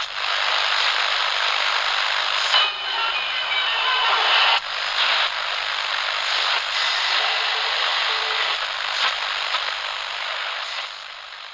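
Radio static: a dense, steady hiss of an untuned radio. It has faint whistling tones mixed in and a couple of sudden shifts in the noise, and grows quieter toward the end.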